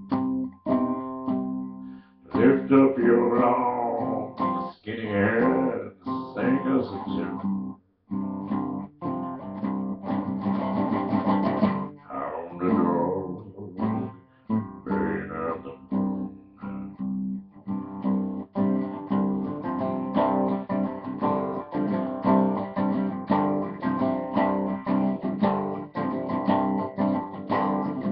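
Acoustic guitar strummed and picked through an instrumental passage of a folk-blues song. A man's low bass-baritone voice comes in over the guitar in places, a few seconds in and again about twelve seconds in.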